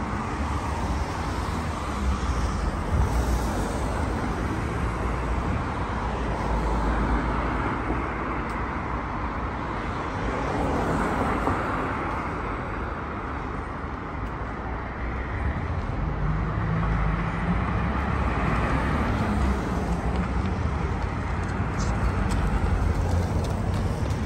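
Road traffic on a city street: a steady rumble of cars, with several vehicles growing louder and fading as they pass close by.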